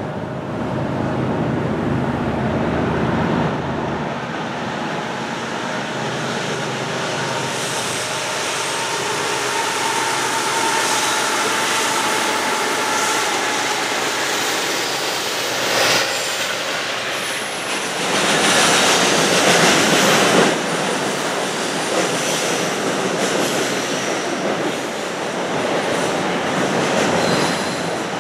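Long intermodal stack train rolling across a steel girder bridge: a steady rumble of wheels on rail with squealing wheels. There is a low rumble in the first few seconds, and it is loudest about 18 to 20 seconds in.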